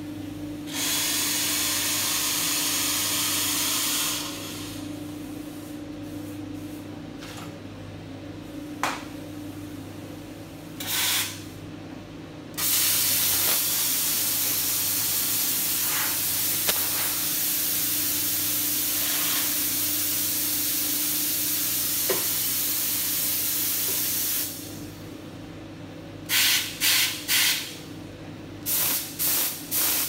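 Steam wand of a Fracino Contempo dual-fuel espresso machine hissing as steam is let through: a blast of about three seconds, a short one, then a long steady hiss of about twelve seconds. Near the end come two quick sets of three short blasts, the wand being purged.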